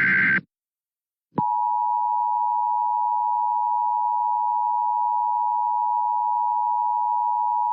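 The end of an EAS SAME header data burst stops in the first half-second; after about a second of silence, the EAS attention signal starts and holds: a steady two-tone beep (853 and 960 Hz) announcing a tornado warning.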